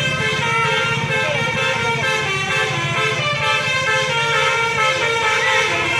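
Bus telolet horn, a set of musical multi-tone air horns, playing a run of held notes over the steady low running of the bus's engine.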